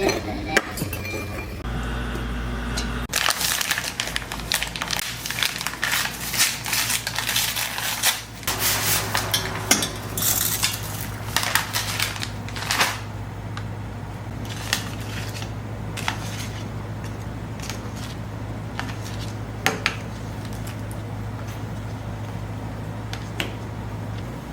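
Kitchen utensils clinking and scraping against pots and dishes during cooking: busy clatter for the first half, sparser clinks later, over a steady low hum.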